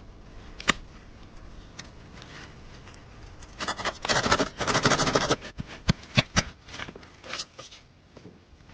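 Hand work on natural building material: a sharp click, then a dense stretch of scraping and rustling lasting about two seconds midway, followed by several sharp knocks and clicks.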